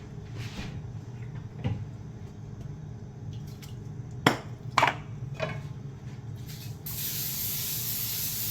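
A few sharp knocks of kitchenware near the middle, then an aerosol can of cooking spray hissing steadily for about two and a half seconds as a pan is greased, all over a steady low hum.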